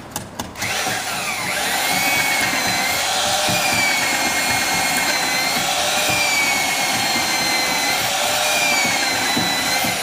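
Handheld electric power tool running steadily for about nine seconds, working wood, its whine wavering slightly up and down as the load changes.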